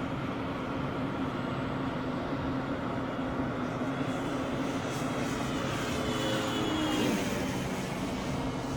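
E-flite Extra 300 electric RC aerobatic plane in flight, its motor and propeller whining over steady wind noise on the microphone. About five seconds in the whine grows louder and climbs in pitch, then drops sharply as the plane passes close, about seven seconds in.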